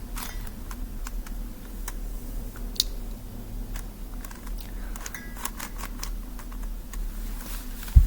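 Megaminx twisty puzzle being turned by hand: irregular plastic clicks and clacks as its faces rotate, the sound it makes whenever it is turned. A dull thump near the end.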